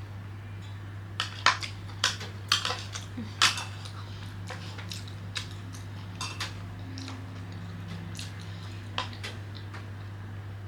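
Chopsticks clicking and scraping against dishes as food is picked at, with a quick run of sharp clicks in the first few seconds and then scattered lighter taps, over a steady low hum.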